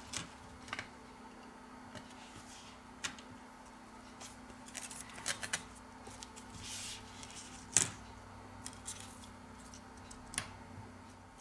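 Scattered faint clicks and light taps of a phone's plastic-and-metal top cover with its NFC antenna foil being lifted off and handled, the sharpest click about eight seconds in, over a steady low hum.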